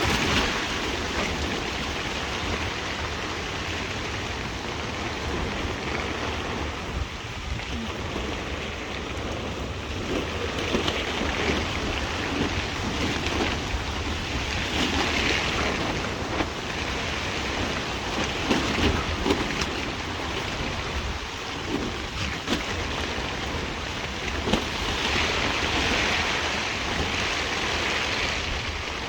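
Strong gusty wind of 40-60 mph rushing steadily, with a low rumble underneath. It swells louder about halfway through and again near the end as gusts pass.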